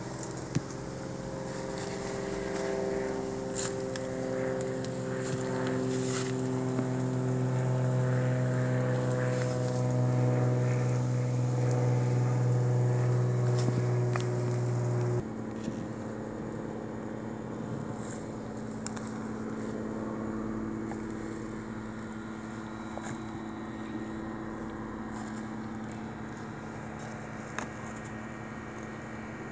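Steady drone of an engine or motor, a constant hum with several held tones that drift slightly. It changes abruptly about halfway through to a quieter, lower steady hum.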